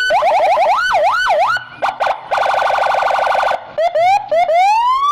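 Police car's electronic siren cycling through its tones: a fast warbling yelp, then a couple of slower sweeps, then a rapid steady pulsing tone for about a second, and near the end a long rising wail.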